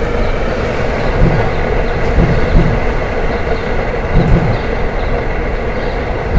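Skateboard wheels rolling fast over rough asphalt: a continuous loud rumble with a few heavier thumps.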